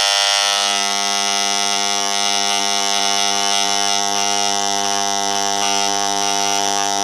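Handheld Parkside electric engraving tool buzzing loudly and steadily as its tip etches rail lines into a strip of picture-mounting card.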